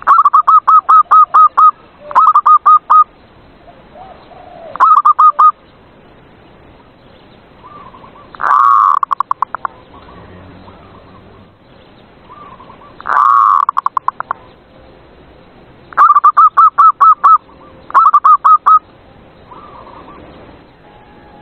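Zebra dove (perkutut) cooing: seven phrases of rapid staccato coos, each a quick run of short notes, a few seconds apart. The two phrases in the middle open with a longer drawn-out coo before the fast notes.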